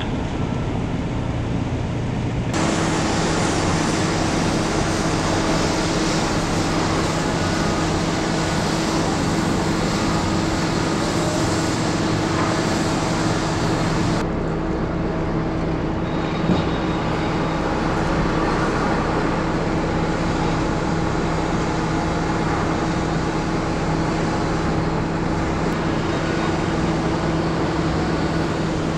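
Heavy construction machinery running steadily: a diesel drone with a constant low hum that sets in a couple of seconds in. The mix shifts about halfway through.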